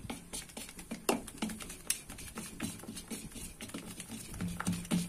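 A spoon stirring thick besan batter in a steel bowl, with irregular light clicks and taps of the spoon against the bowl's side. Two sharper taps come about a second and two seconds in.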